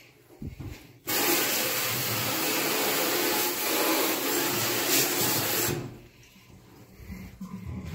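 Water running hard into a kitchen sink from a tap or sprayer, turned on suddenly about a second in and shut off nearly five seconds later.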